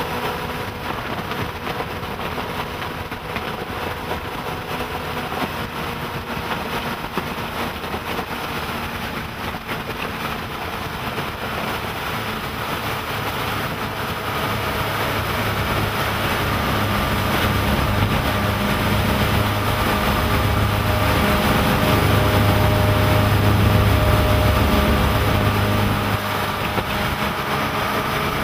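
Twin MerCruiser 5.0L fuel-injected V8 inboards driving a cabin cruiser under way, heard from the helm with wind rushing past. The engine drone grows louder through the second half, with a strong low rumble, and eases a little near the end.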